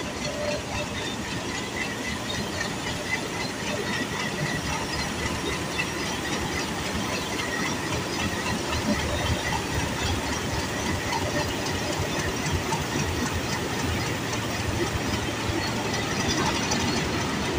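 Hitachi HBU-20 diesel-electric locomotive moving slowly past at the head of a departing train: steady engine and running-gear noise, with a faint high-pitched squeal.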